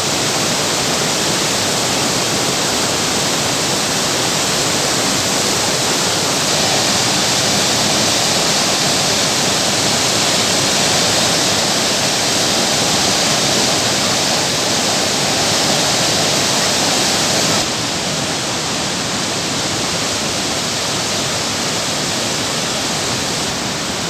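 Rain-swollen mountain stream in full flood, water rushing steadily; the rush steps down a little in loudness about three-quarters of the way through.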